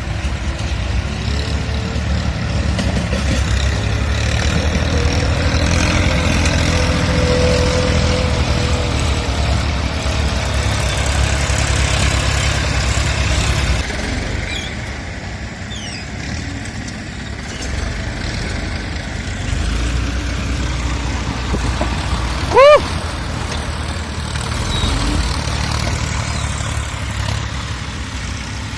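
A heavy engine running steadily, louder for the first half and then easing off. About two-thirds of the way through there is one brief, loud, high-pitched tone.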